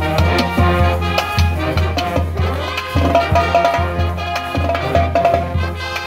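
High school band of clarinets, saxophones and sousaphones with drums playing an upbeat tune live, the sousaphones pulsing a repeated bass line under the reeds.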